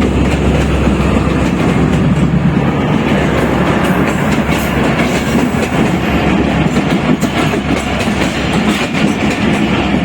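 A moving train running on the track: a steady heavy rumble with the wheels clattering over the rails.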